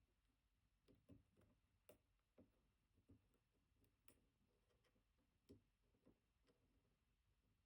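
Faint, irregular small metallic clicks and ticks from a dimple lock pick working the pins of a BKS Janus high-security dimple cylinder.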